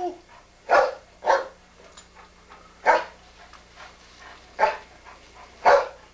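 Dog barking on command: five single, sharp barks spaced irregularly, about a second or more apart.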